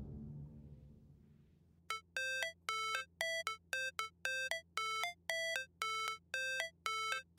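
Background music: one track fades out, and after a brief near-silent gap an electronic beeping note starts repeating about twice a second, like a ringtone.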